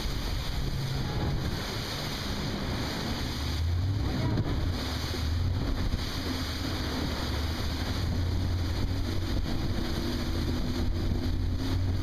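Inflatable speedboat running fast across a river: a steady engine drone under the rush of its churning wake, with wind buffeting the microphone.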